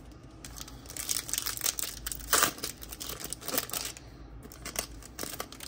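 Foil wrapper of a Topps Gold Label baseball card pack crinkling and tearing as it is pulled open by hand, a run of crackles loudest about halfway through.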